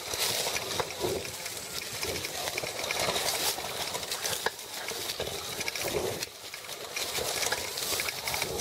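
Diamondback Recoil e-bike ridden fast over a rough dirt trail: the frame and steel front fork rattle and knock over the bumps, under a steady rush of wind on the handlebar-mounted camera.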